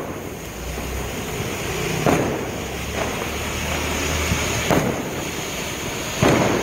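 Royal Peacock fan fountain firework spraying several jets of sparks with a steady rushing hiss. Three sharp cracks cut through it: about two seconds in, near five seconds and near the end.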